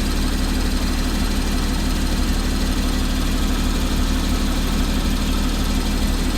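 2014 Porsche Cayman's flat-six engine idling steadily with a ticking sound that the owner noticed.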